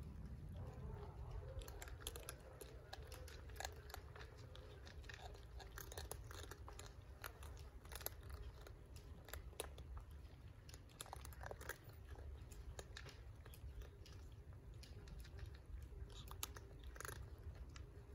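Several cats and kittens chewing dry kibble, a faint, irregular patter of small crunches and clicks over a steady low rumble.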